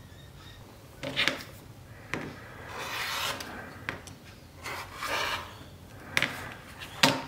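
Rotary cutter rolling along the edge of a clear plastic quilting ruler and slicing through cotton fabric on a cutting mat: several short rasping strokes, with a sharper tap near the end.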